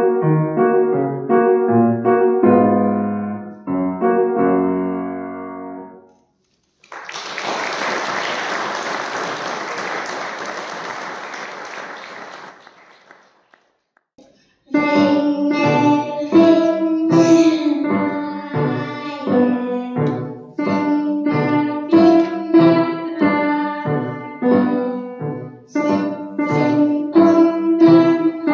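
Grand piano playing a student's recital piece that ends about six seconds in. About six seconds of applause follow and fade away, then a short silence, and piano playing starts again with a new piece.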